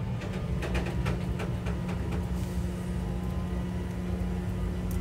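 A vehicle engine idling with a steady low rumble. There is a run of light clicks about half a second to two seconds in.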